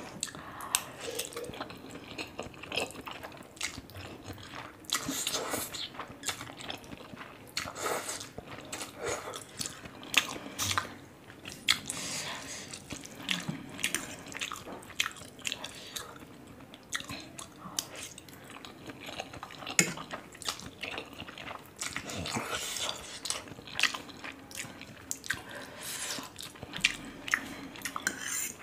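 Close-up wet chewing and mouth smacks of a person eating saucy spicy instant noodles: a dense, irregular run of short wet clicks. A fork scrapes and taps on the plate as it twirls up more noodles.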